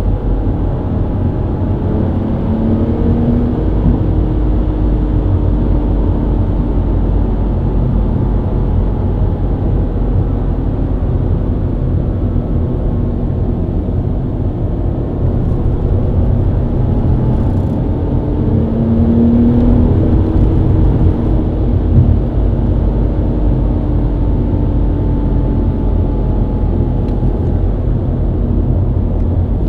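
BMW E90 323i inline-six engine running at highway speed over a steady low tyre and road rumble. The engine note rises and falls a couple of times, with one short bump about two-thirds of the way through.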